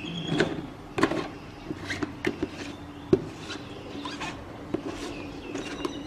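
Scattered sharp clicks and taps of metal serving tongs against the shells of salted crabs and a china plate, over a low steady hum.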